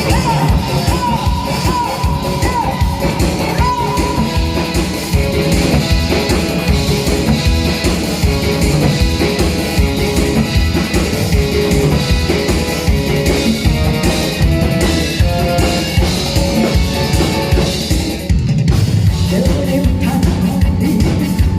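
Up-tempo disco-style backing track with a steady drum-kit beat and a melody line, with singing over it; the music breaks off briefly about eighteen seconds in and comes straight back.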